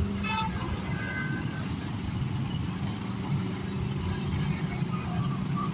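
Road traffic: a steady mix of vehicle engines running and rumbling, with a few brief faint higher tones over it.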